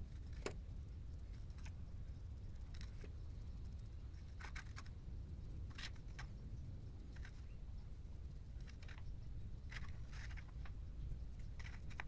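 Faint, scattered light taps and scrapes of a small artist brush working trim adhesive onto a felt vent seal and dipping into a plastic cap, over a low steady background rumble.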